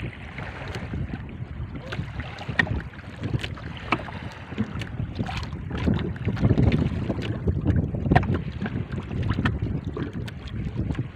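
Wind buffeting the microphone and sea water slapping and lapping against a small boat's hull, with scattered sharp knocks and splashes.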